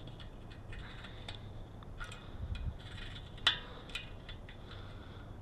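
Light clicks and short scrapes of hand tools being handled, with one sharper click about three and a half seconds in.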